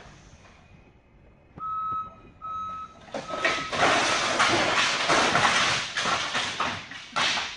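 Three short warning beeps from a forklift, then a stack of wooden pallets toppling from a high rack and crashing to the floor in a long clattering pile-up of many knocks that lasts about four seconds.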